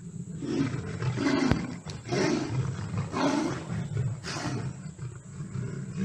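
A big cat roaring in a series of deep grunts, about five of them roughly a second apart.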